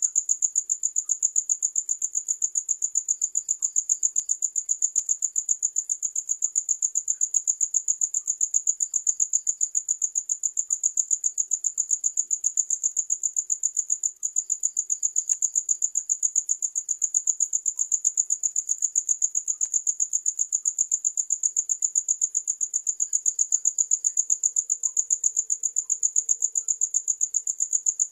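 Cricket chirping: a steady, high-pitched trill of rapid, even pulses, broken for a moment about halfway through.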